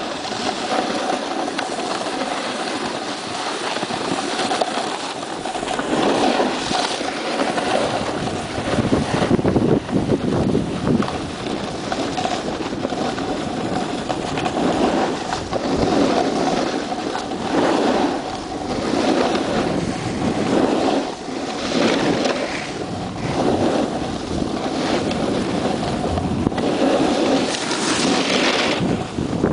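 Wind rushing over the microphone with the scraping hiss of sliding down packed, groomed snow, swelling and easing every second or two as the rider turns.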